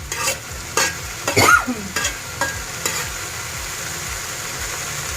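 Rice, lentils and cubed potatoes frying in oil in a pot, with several stirring and scraping strokes through them in the first three seconds, then a steady sizzle.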